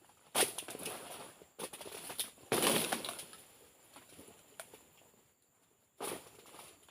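Oil palm pruning chisel striking and cutting into palm fronds: several separate sharp cuts, the largest about two and a half seconds in, each trailing off in a leafy rustle, with a last one about six seconds in.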